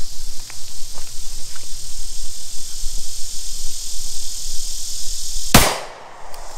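A single shot from a Glock 30 Gen 4 pistol firing a handloaded .45 ACP round, about five and a half seconds in.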